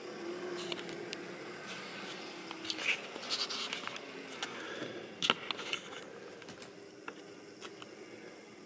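Scraping, rubbing and clicking handling noise from a camera being lifted and swung to a new position, with the loudest clicks about three and five seconds in. A faint steady electric hum from the model railway lies underneath.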